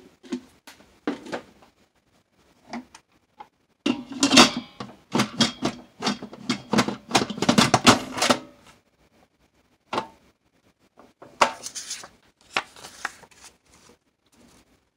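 Kitchen handling clatter: sharp clicks and knocks of hard dishes and utensils, densest in a fast run from about four to eight seconds in, then the rustle and tapping of index cards being swapped near the end.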